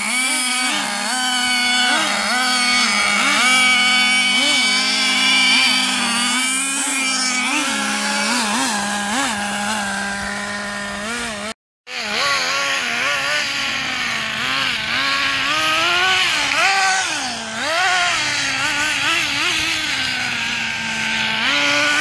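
Small nitro-fuelled two-stroke glow engines of radio-controlled cars, buzzing at a high pitch and revving up and down again and again as the cars accelerate and slow. In the first half a steady engine note runs underneath. The sound breaks off for a moment just before halfway.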